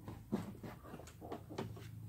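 A string of light clicks and knocks as a PVC rib and a cordless drill are handled and set against the canoe's plastic hull, ready to drive a screw.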